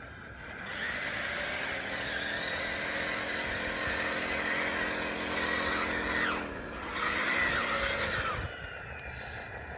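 Electric motors and gearing of an RC bulldozer running with a whine, in two runs: a longer one starting about a second in, and a short second run after a brief drop, with some thin squeals from the drive.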